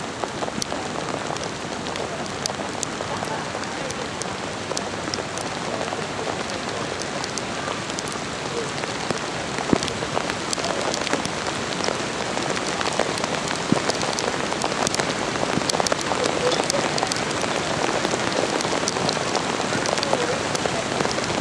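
Steady rain falling, with scattered sharp drop ticks close by.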